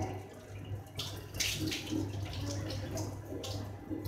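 Hands squeezing and shaping a soft mashed potato kebab mixture in a steel bowl, giving a few short wet, squishy rustles over a steady low hum.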